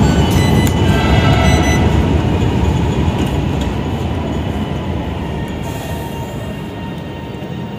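Orange Line metro train rumbling, slowly fading as it runs out of the station.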